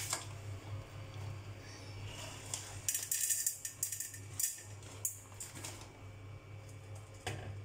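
Scattered light clinks and rattles of kitchen things being handled at the stove, clustered in the middle of the stretch, over a steady low hum.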